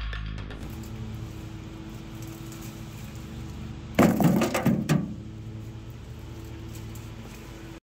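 Fieldstones knocking together in a quick run of hard clacks lasting about a second, starting about four seconds in, over a steady low mechanical hum.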